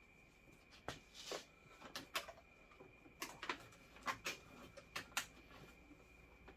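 Faint handling noises from work on the wiring: a string of about a dozen short clicks and scrapes, irregularly spaced.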